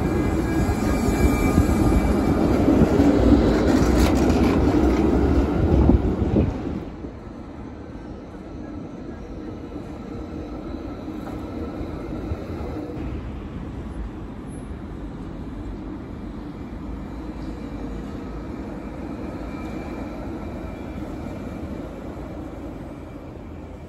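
Helsinki articulated tram pulling away and rolling past close by, a loud rumble of wheels on rails and running gear. About seven seconds in it cuts abruptly to a quieter, steady rumble of a tram running farther off.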